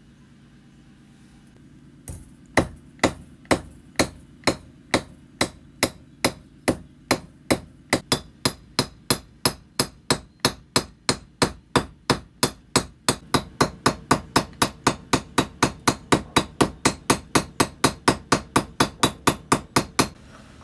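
A hand hammer striking in a steady rhythm, starting about two seconds in. It gives about two blows a second at first and quickens to about three a second from around eight seconds in, each blow with a short high ring.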